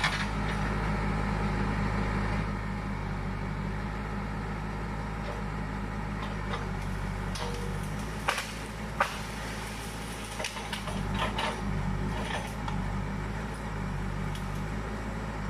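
Backhoe's diesel engine running steadily, with two sharp knocks about eight and nine seconds in and a few lighter clatters after them.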